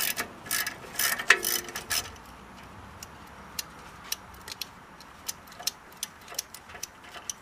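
Ratchet wrench backing out the lower bolt of a rear brake caliper: quick runs of ratchet clicking for the first two seconds, with one brief metallic clink, then scattered single clicks.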